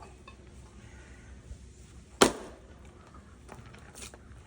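A single sharp strike of a splitting tool into an osage orange (hedge) log about two seconds in, dying away quickly.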